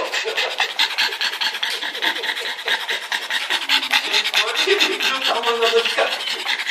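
Adult pug panting fast and close to the microphone, a rapid, even run of short breaths.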